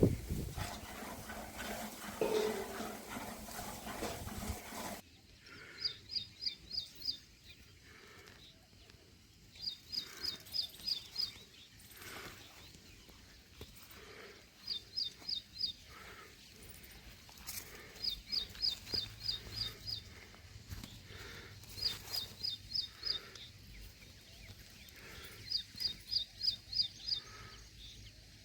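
A bird calling over and over, each call a quick run of five to seven short high notes, repeated every three to four seconds. A louder, noisier sound fills the first few seconds before the calls begin.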